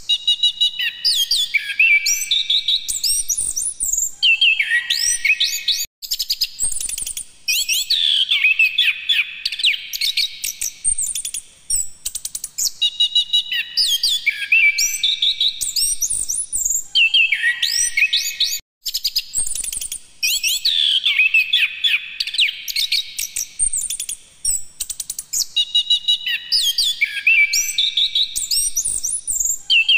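Caged Anis kembang (chestnut-capped thrush) singing loudly: long runs of rapid, high whistled notes sweeping up and down, in phrases of a few seconds broken by short pauses.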